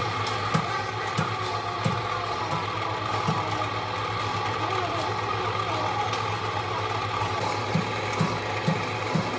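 A motor-driven workshop machine running steadily with a low hum and a thin whine, and a dull knock repeating about every half second that drops out through the middle and returns near the end.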